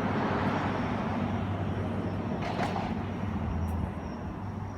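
A motor vehicle's engine running steadily, a low hum under a wash of noise, with a short hiss about two and a half seconds in.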